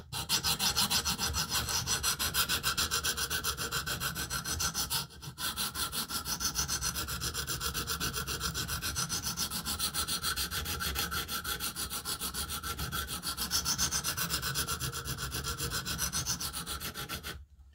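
100-grit diamond stone on a KME guided sharpening system rubbing in quick, even up-and-down strokes along an M390 steel knife's bevel, grinding out chips and a rolled edge. The strokes pause briefly about five seconds in and stop just before the end.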